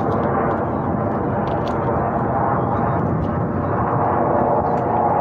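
Jet engines of a formation of military display jets flying overhead: a steady, even roar of engine noise that holds throughout without breaks.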